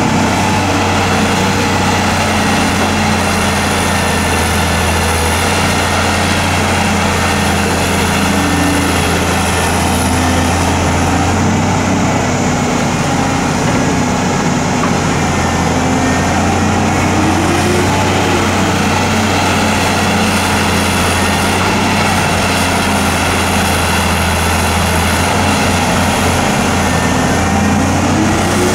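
Diesel engine of a Hyundai Robex 290LC-3 crawler excavator running steadily while it digs and loads soil into a dump truck. Its pitch rises briefly a few times as the hydraulics take load.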